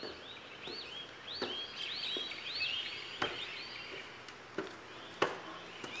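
Footsteps of sneakers on concrete, one step about every 0.7 seconds. Small birds chirp repeatedly in the background, in short rising-and-falling notes.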